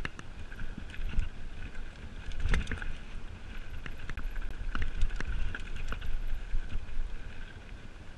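Mountain bike descending a dirt trail: tyres running over dirt and the bike rattling, with sharp knocks over bumps, the strongest about two and a half and five seconds in. Wind rumbles on the microphone throughout.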